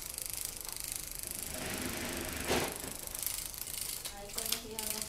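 Battery-operated moving butterfly cat toy rattling and whirring as a cat bats at it with its paw, with a sharp click about halfway through and a few short pitched sounds near the end.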